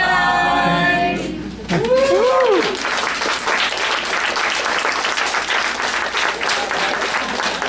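A group of children's voices holds a final sung note, which stops after about a second and a half; then an audience breaks into applause, with a couple of rising-and-falling whoops near the start, and the clapping carries on steadily.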